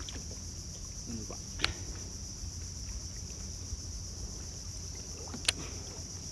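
Steady high insect drone from the mangroves over a low rumble, with two sharp ticks, about a second and a half in and again near the end.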